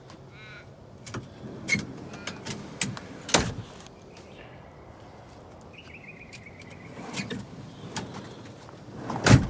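A Titan fridge slide being worked by hand: a run of metal clicks and clunks from the latches and runners, a sharp knock about three seconds in, a short squeak around six seconds in, and a loud clunk near the end.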